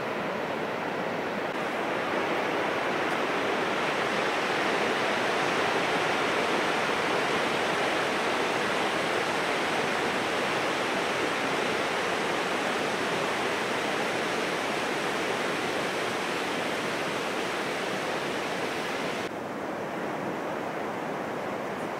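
Rough post-typhoon surf breaking on a sandy beach: a steady wash of waves that swells a couple of seconds in and drops off suddenly near the end.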